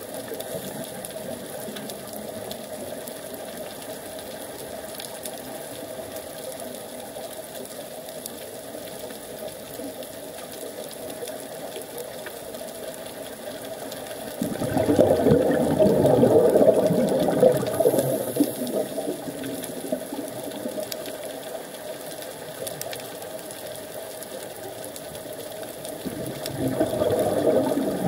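Underwater ambience picked up by a diver's camera: a steady low hiss, broken about halfway through by a scuba diver's exhaled bubbles gurgling out of the regulator for about four seconds, and again near the end.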